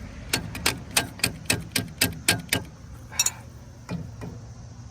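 A quick, irregular run of sharp metallic clicks, about five a second, from hand-tool work on a Snapper Trail Cruiser's front suspension parts, followed by two more spaced clicks near the end.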